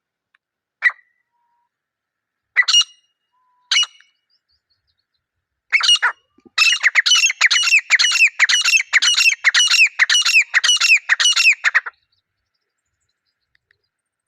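Grey francolin (desi teetar) calling: a few single harsh notes spaced a second or two apart, then a fast run of loud, repeated ringing notes, about two or three a second for five seconds, that stops abruptly.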